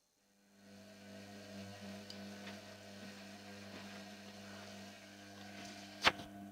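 Indesit washing machine starting to run: a steady mains-type hum with a light hiss over it sets in about half a second in, and a sharp click sounds near the end.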